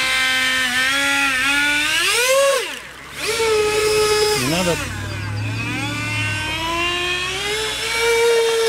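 70 mm electric ducted fan on a model hydroplane boat whining at speed, its pitch following the throttle: it climbs about two seconds in, drops away briefly twice around three and four and a half seconds, then holds and rises slowly again near the end.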